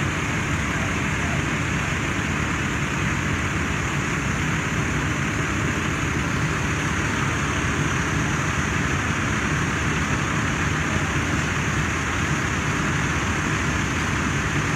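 Fire engine running steadily while pumping water into charged hose lines: a constant low engine drone under a rushing hiss.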